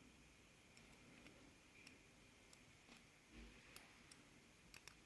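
Near silence with a few faint, scattered clicks and one soft low bump: small handling sounds of the dismantled padlock and its key.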